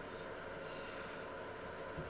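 Steady room hum and hiss with no distinct event, and one short knock of a knife on a wooden cutting board at the very end.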